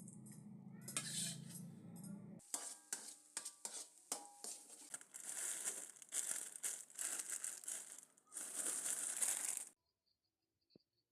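Crinkling and light clattering of household items being handled, a quick run of small knocks and rustles that stops abruptly near the end.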